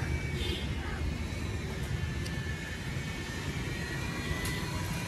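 Steady low rumble of a distant engine, with a faint high whine slowly falling in pitch and a few light ticks near the end.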